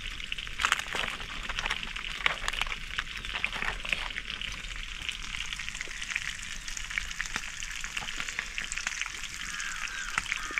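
Fish frying in hot oil: a steady sizzle with many small crackles and pops.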